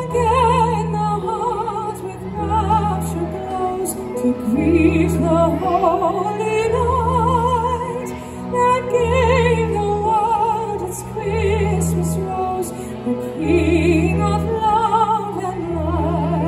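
Slow, operatic-style music: a high voice sings a melody with wide vibrato over low bass notes that pulse about once a second.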